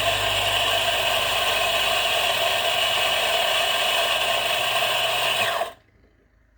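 Turin electric burr coffee grinder running, its motor whirring as it grinds beans at a filter-grind setting, then switching off about five and a half seconds in, the pitch falling as the motor spins down.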